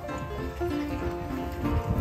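Background music, a melody of held notes stepping in pitch, with a low thump near the end.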